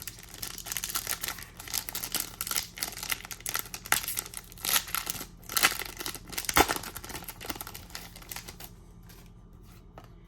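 Trading card booster pack wrapper being torn open and crinkled by hand, a dense crackling rustle for about nine seconds that stops near the end.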